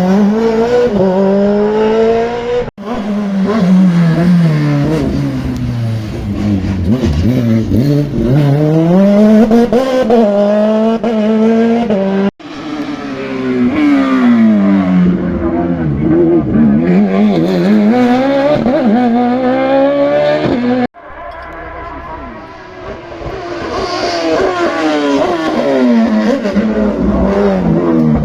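Race car engines accelerating hard and shifting up and down through the gears, the pitch repeatedly climbing and falling, in several separate runs that cut off abruptly about 3, 12 and 21 seconds in.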